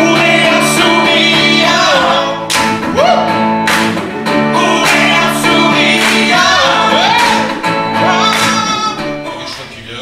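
A mixed group of men and women singing together in harmony, with a strummed acoustic guitar; the song fades out near the end.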